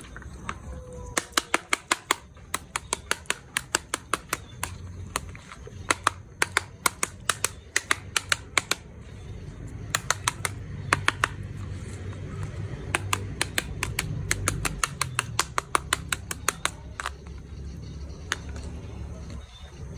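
Rapid runs of sharp clicks, several a second, coming in bursts of a second or two with short pauses between, over a low steady hum.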